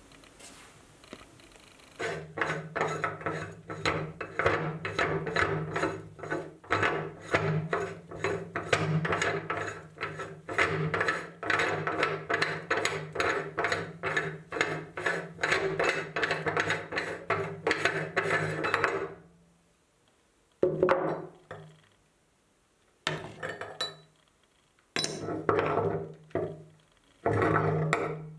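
Meat grinder running, grinding cake with a steady hum under a rapid rhythmic clatter. It runs for about seventeen seconds, stops, and then runs again in several short bursts near the end.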